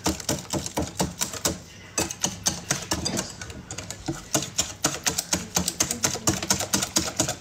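Rapid, uneven clicking of a utensil against a bowl, about five strikes a second, as a cake batter is beaten, with two brief pauses.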